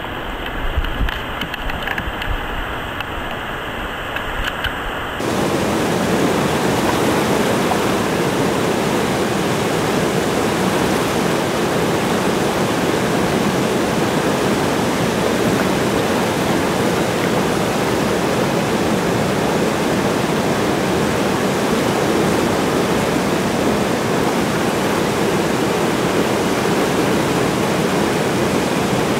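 Flowing river water, fairly quiet at first. About five seconds in, a louder steady rush of whitewater rapids takes over and holds.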